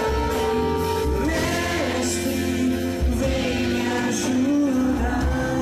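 Live gospel band playing a worship song, with voices singing over a steady bass.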